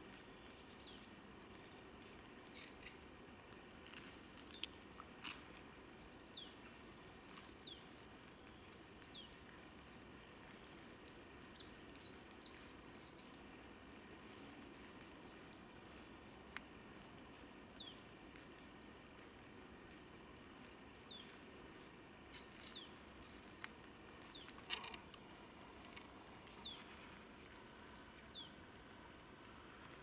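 Small birds giving high, thin calls: short high trills and quick down-slurred notes scattered throughout, with a louder cluster about four seconds in and again near the end, over a faint steady hiss.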